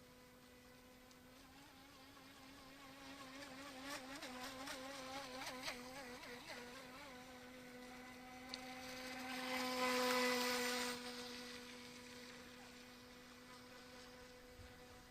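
UDI Rapid RC speedboat's battery-powered motor running with a steady whine, its pitch wavering between about two and seven seconds in, then growing louder around ten seconds in and fading again as the boat moves off.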